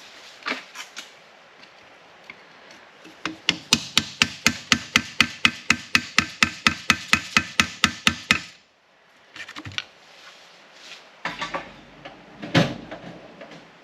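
Hammer blows in a fast, even run, about five or six a second for roughly five seconds, knocking at parts of a rusted front strut assembly being taken apart. A few scattered knocks and clanks follow near the end.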